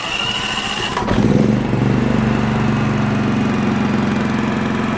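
Champion 4500-watt dual fuel inverter generator being electric-started without choke: the starter cranks briefly, the engine catches about a second in, revs up and settles into a steady run. The quick start shows the no-start fault is fixed.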